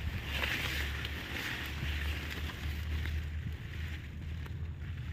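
Leaves and stems rustling as someone pushes through dense brush, over a steady low rumble of wind and handling on the microphone; the rustling is strongest in the first couple of seconds.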